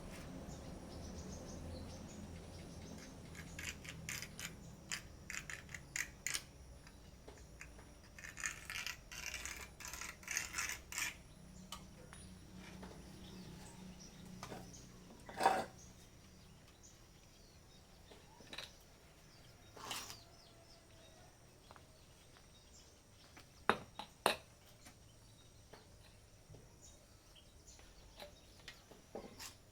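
Faint, scattered knocks and clicks of tools and metal being handled, with a short run of light scraping about a third of the way in and one sharper knock around the middle.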